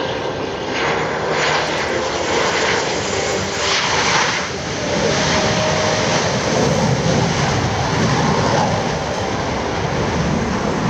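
CF-18 Hornet's twin General Electric F404 jet engines running loud as the fighter passes low over the runway with its gear down and then climbs away. The sound grows deeper and stronger from about halfway through.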